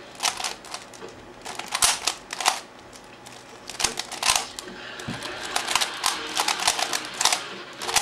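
Plastic 3x3 speedcube (a Type C DIY) being turned rapidly by hand in a speedsolve: quick runs of clacking turns broken by short pauses, the turning near continuous in the second half.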